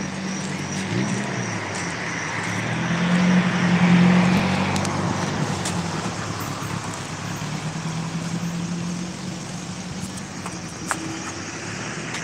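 A car passing on the road, its noise swelling to a peak about four seconds in and then fading, over a steady low hum. A single sharp click comes near the end.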